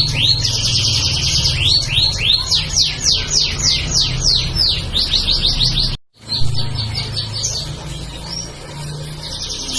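Domestic canary singing: fast rolling trills and a run of repeated downward-sweeping notes over a low hum. The song cuts out for a moment about six seconds in, then carries on trilling.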